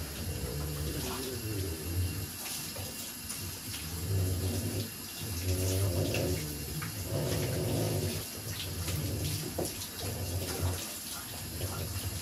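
Water running from the bathtub tap and splashing as a French bulldog is rinsed and rubbed under it. Low pitched hum-like sounds swell and fade several times underneath.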